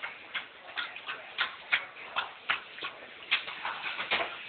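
Alaskan Malamute lapping soup from a bowl, about three wet laps a second in a steady rhythm.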